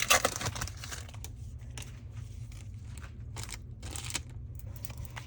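Pokémon booster pack foil wrapper crinkling and rustling as it is handled, with scattered short crackles, loudest in the first half-second. A low steady hum runs underneath.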